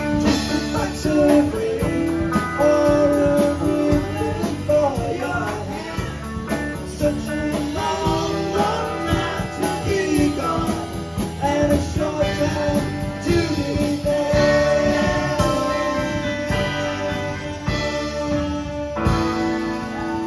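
Live rock band playing: electric guitar lines over keyboards, bass and drums, with a voice singing at times.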